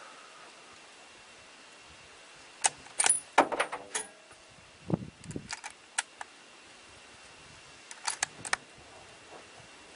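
Handling of the rifle and shooting gear: sharp metallic clicks and rattles in three short clusters, the loudest about three seconds in, with a couple of dull knocks around five seconds.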